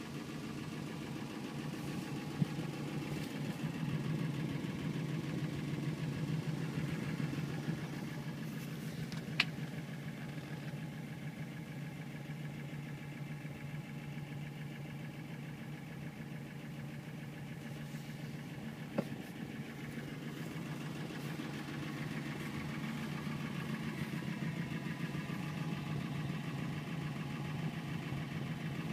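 1955 Ford Crown Victoria's engine idling steadily, with three brief clicks.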